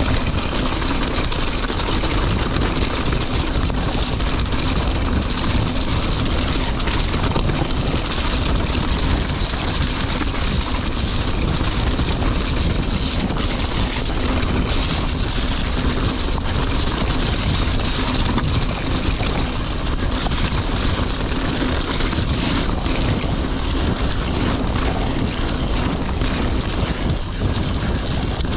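Mountain bike (Santa Cruz Bronson) riding down a wet, rocky track: a steady noise of wind on the microphone and tyres rolling over stones and gravel.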